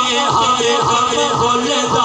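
A man singing a naat, a devotional Islamic chant, into a microphone, his voice holding and bending long melodic lines.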